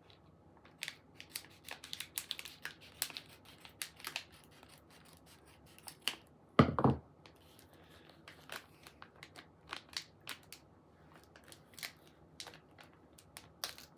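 Small plastic bag crinkling and crackling in short bursts as a circuit tester is worked out of it, with one louder thump about halfway through.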